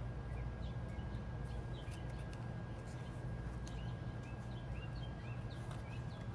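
Steady low hum with faint, scattered bird chirps over it, and light taps and rustles of card stock being moved by hand.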